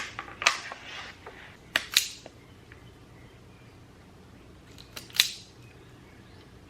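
Sharp clicks and snaps from hand tools working electrical wire: one at the start, one about half a second in, a close pair near two seconds and another close pair about five seconds in.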